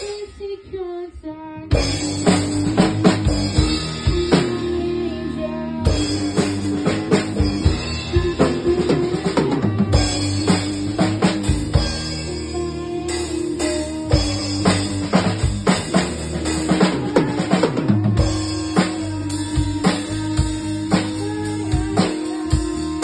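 A rock band playing live in a small rehearsal room: a Tama drum kit driving a beat of bass drum, snare and cymbals, with electric bass and guitar under it. For the first second or two the band nearly stops, then everyone comes back in together.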